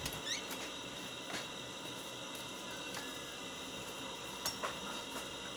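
Quiet room tone: a steady hiss with a few faint clicks, one about a second in and a close pair near the end.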